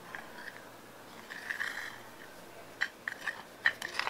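Metal spoon stirring dry gram flour and spices in a glass bowl: a soft scrape about one and a half seconds in, then from about three seconds in a quick run of light clicks and scrapes of the spoon against the bowl.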